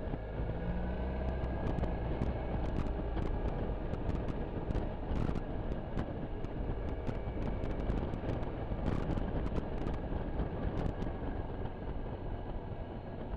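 Suzuki Burgman 650 scooter's parallel-twin engine running under way, with a steady rush of wind and road noise. Scattered sharp clicks come through during most of the ride.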